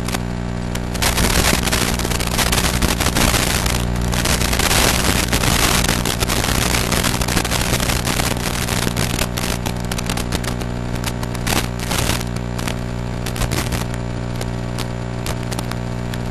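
Steady electrical buzz with dense crackling static and stretches of louder hiss, the noise of an analog FPV video link recorded on goggle DVR. The hiss is loudest in the first few seconds.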